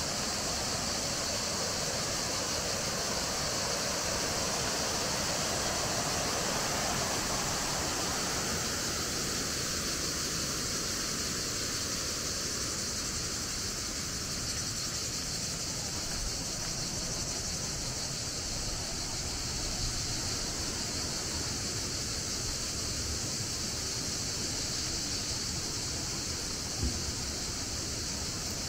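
Steady rushing of water pouring through a canal sluice, which fades after about eight seconds. Under it runs an unchanging high-pitched hiss that is louder than the water.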